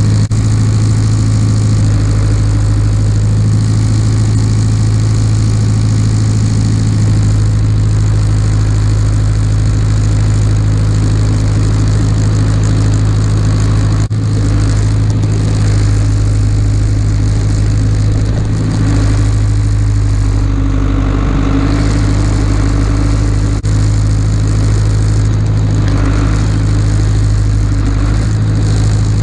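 Farm tractor's engine running steadily while moving round hay bales.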